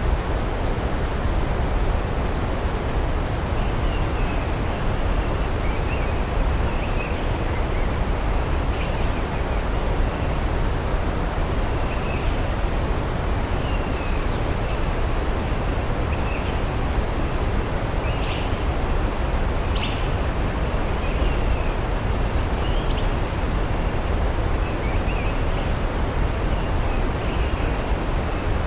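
Steady rushing of a waterfall, with faint birds chirping now and then in the distance.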